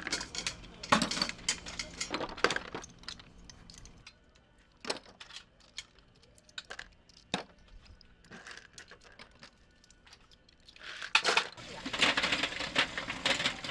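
Scattered clinks and knocks of hard objects being handled, with a denser spell of clattering and scraping near the end.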